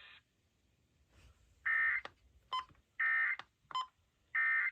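Emergency Alert System SAME end-of-message data bursts over weather radio: three short, raspy digital bursts about 1.3 seconds apart, marking the end of the alert broadcast. Brief sharp clicks sound between the bursts.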